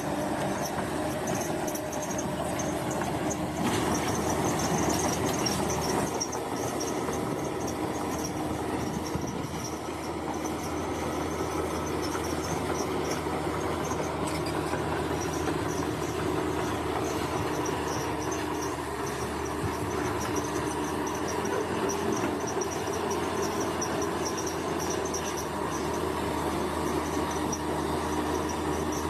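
Bulldozer running steadily with a constant diesel drone. A thin, high, pulsing squeal-like sound sits over it.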